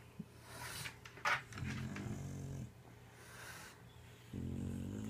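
A drowsy toddler breathing heavily as he dozes off, with two low, snore-like breaths between airier breaths. A short, sharp click comes about a second in.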